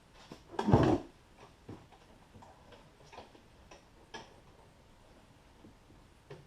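Handling noise as a pull strap is fed through a door rod: one loud scrape about a second in, then scattered light clicks and taps.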